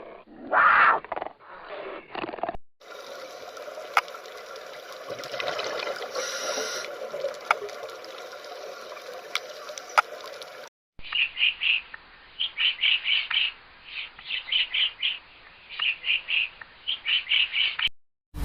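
Three separate animal-sound clips in turn. First a short clip, then a steady noisy background with a few sharp clicks, then runs of short, high, quick chirps, typical of a small bird.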